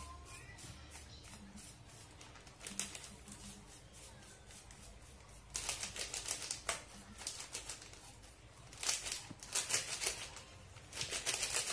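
Plastic jelly-powder sachet crinkling as it is shaken and squeezed to empty the chocolate powder into a pot. It comes in several bursts of crackly rustling and small clicks, about three seconds in, around six seconds, and again near the end.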